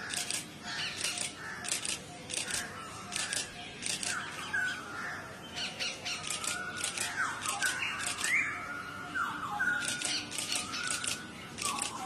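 Rose-ringed parakeets calling at the nest: short raspy calls about two or three a second, with squeaky notes sliding in pitch through the middle. This fits chicks begging while the adult feeds them.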